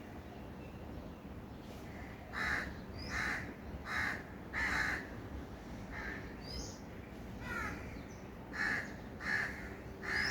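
A crow cawing in a run of about eight short calls starting about two seconds in, with a few thinner chirps from another bird between them over steady low background noise.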